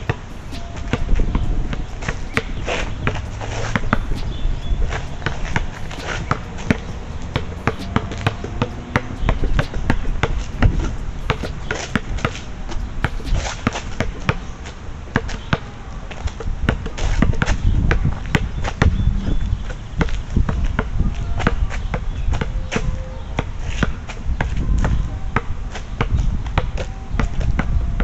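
A basketball being dribbled: repeated bounces coming several a second at an uneven pace.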